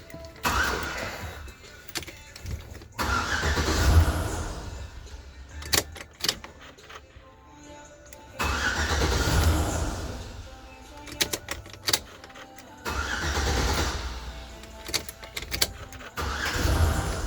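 Pickup truck engine cranked on the starter four times, each crank lasting a few seconds without the engine catching: a crank-no-start condition.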